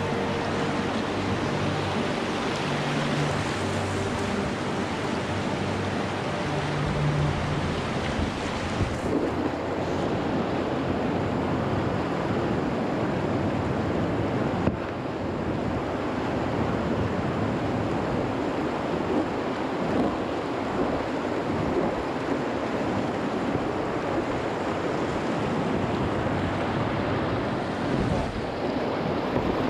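Steady rush of moving river water with wind buffeting the microphone. Faint low sustained tones sit under the rush for the first eight seconds or so.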